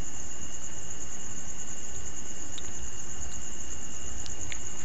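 Steady high-pitched background whine, with a fainter, lower steady tone beneath it over an even hiss, and a few faint ticks in the second half.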